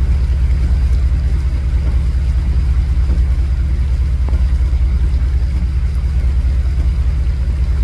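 A stopped vehicle's engine idling with a steady, low, pulsing rumble, over a faint hiss of rain.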